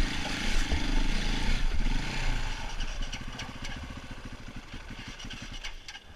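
Enduro dirt bike engine running as the bike climbs a rocky trail, then easing off: from about halfway the engine drops to slow, even firing beats and grows quieter as the bike slows.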